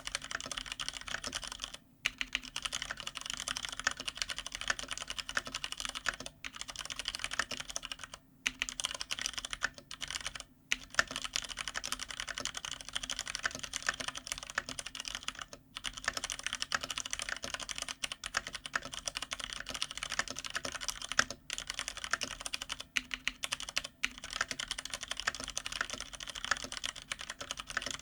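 Continuous fast typing on a GTune GK993B SKY mechanical keyboard with stock, unlubed Cherry MX Brown switches, set on a desk pad. There are short pauses in the key clicks about 2, 6, 8, 10, 15 and 21 seconds in.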